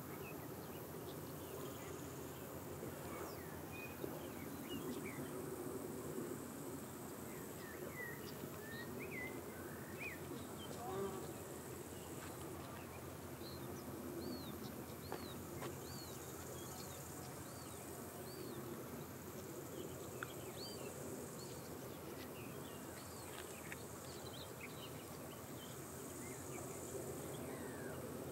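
Faint outdoor ambience: birds chirping in short scattered calls, with a run of repeated arched notes about once a second around the middle, over a steady low rumble. A high hiss swells and fades a few times.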